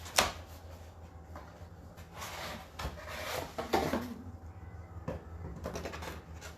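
A picture frame being picked up and handled: a sharp knock just after the start, then rubbing and shuffling sounds, over a steady low hum.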